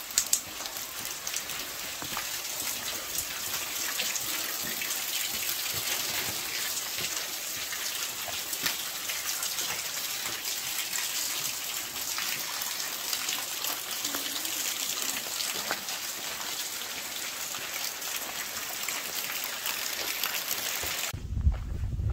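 Steady rain falling, a dense hiss full of small drop ticks. A little before the end it cuts off and gives way to a low rumble.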